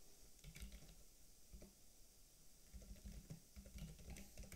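Faint typing on a computer keyboard: scattered key clicks at irregular intervals.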